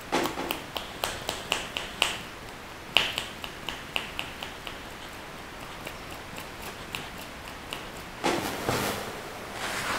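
A series of sharp, ringing clicks, several a second for the first few seconds and then sparser, followed by a short rustle about eight seconds in.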